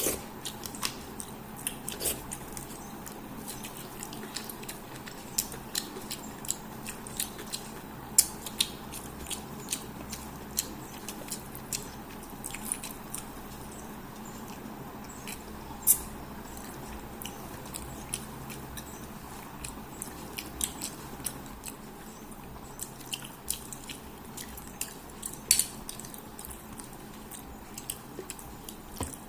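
Close-up eating sounds: wet chewing, lip smacking and sucking on a fish head, with scattered sharp clicks and crunches of small bones, loudest about 8, 16 and 25 seconds in.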